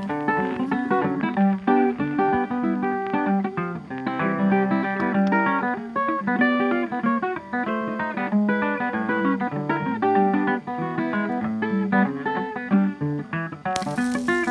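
Background music: an acoustic guitar playing quick plucked notes.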